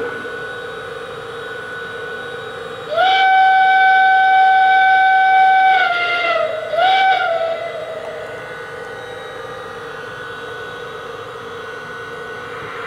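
Lionel Pennsylvania CC2 0-8-8-0 model steam switcher's onboard sound system playing the Pennsylvania Railroad 'hooter' steam whistle: one long blast about 3 s in whose pitch sags as it ends, then a short toot. A steady hum runs underneath.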